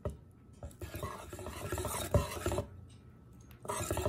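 Wire balloon whisk stirring a thin rice-flour batter in a stainless steel bowl, the wires rattling and scraping against the metal in quick strokes. The whisking pauses briefly about three seconds in, then starts again.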